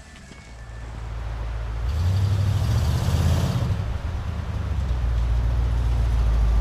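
A motor vehicle's engine running, growing louder over the first two seconds, with a louder surge about two seconds in, then settling into a steady low rumble.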